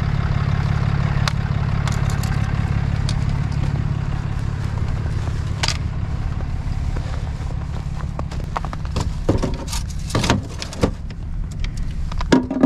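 Ram 3500 pickup's engine idling steadily under everything. Over it come hollow knocks and clacks of plastic leveling blocks being banged to clear the snow and stacked together, mostly in the last few seconds.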